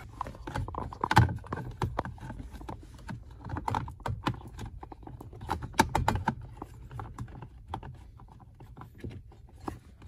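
Irregular clicks, knocks and rattles of hard plastic as an HVAC air duct is handled and pushed into place under the dashboard. The sharpest knocks come about a second in and about six seconds in.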